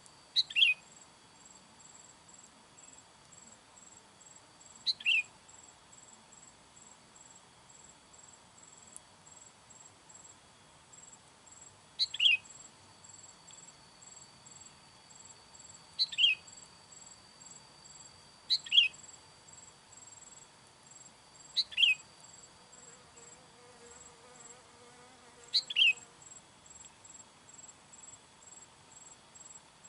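Sooty-headed bulbul calling: seven short calls a few seconds apart, each a quick pair of notes falling in pitch. Steady high-pitched insect trilling runs underneath.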